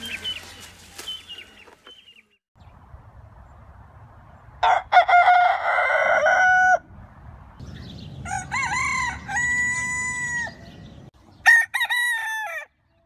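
Roosters crowing: three separate cock-a-doodle-doo crows, each lasting one to two seconds, about 5, 9 and 12 seconds in.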